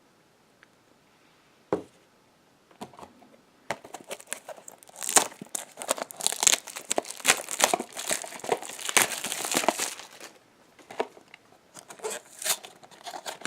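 Plastic wrapping on a cardboard blind box being crinkled and torn off by hand: a single click, then a few seconds of dense crinkling and tearing, tailing off into scattered crackles.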